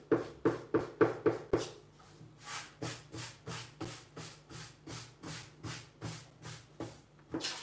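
Eraser rubbing back and forth on drawing paper against a wooden desk, erasing pencil lines, in quick even strokes about three a second. After about two seconds the strokes turn lighter and hissier as a hand brushes across the sheet.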